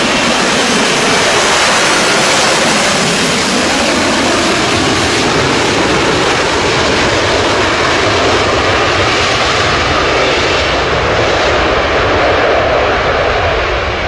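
Lockheed Martin F-35B Lightning's jet engine and lift fan running at high power in short-takeoff/vertical-landing mode as the jet makes a slow approach and lands. Loud and steady throughout, easing a little at the very end.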